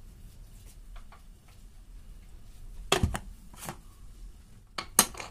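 Prestige Deluxe pressure cooker lid being set on the pot and closed: a few short metal clinks and knocks, a cluster about three seconds in and another near the end.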